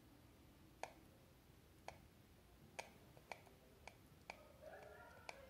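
Faint sharp clicks at uneven intervals, about one a second, from a soldering iron working over fluxed solder joints as an LCD flex cable's pins are soldered to a phone's circuit board.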